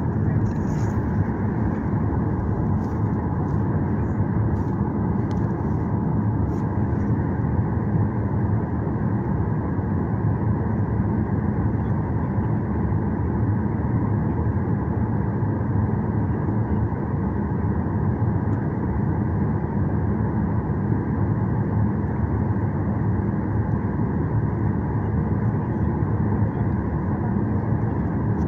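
Steady cabin noise of an airliner's jet engines at ground idle, heard through the fuselage as a low, even hum.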